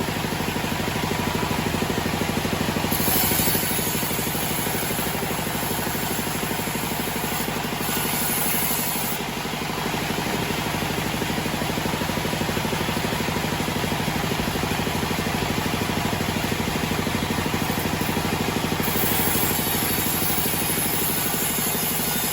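Homemade band sawmill running steadily, with a constant mechanical hum. A high hiss rises briefly about 3 seconds in, again around 8 seconds, and returns near the end.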